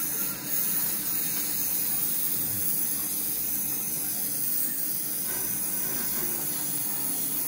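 Steady hiss of paint being sprayed, held without a break.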